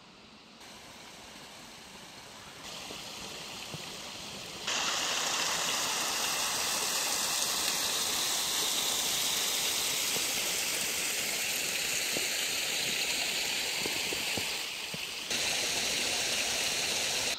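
Steady rush of running water from a small meltwater stream, jumping abruptly louder about five seconds in.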